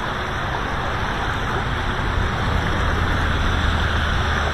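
Steady rushing of river current in a riffle, heard close up, with a low rumble underneath.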